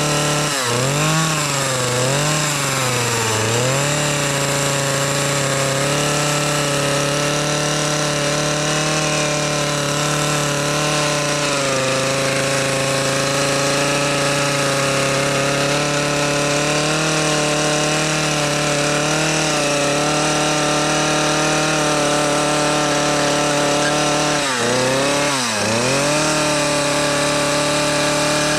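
Stihl chainsaw running at high revs while carving into a block of wood, its pitch dipping briefly and coming back up three times in the first few seconds and twice near the end.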